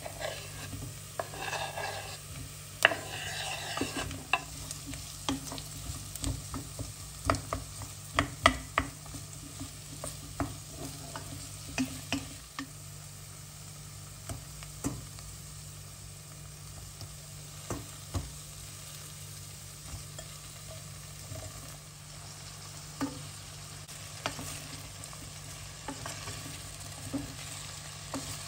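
Onions and diced potato sizzling in a steel pot, with knocks and scrapes as potato is pushed off a wooden cutting board and stirred in. After about twelve seconds the knocks thin out to occasional taps over a steady sizzle and a low hum.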